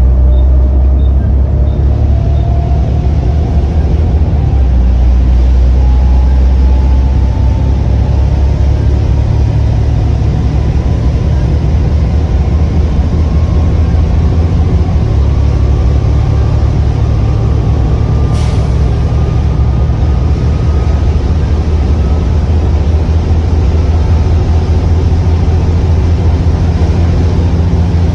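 Volvo B7TL double-decker bus under way, its six-cylinder diesel running steadily, with a whine that climbs slowly in pitch as the bus gathers speed. A short hiss comes about two-thirds of the way through.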